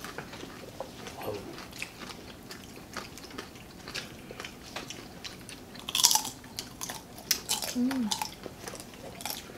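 Close-up chewing and crunching of food eaten by hand, with many small crackles and a louder crunch about six seconds in.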